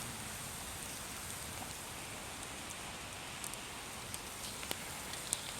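Campfire burning: a steady hiss of the flames with scattered sharp crackles and pops of the wood, a few of them in the second half.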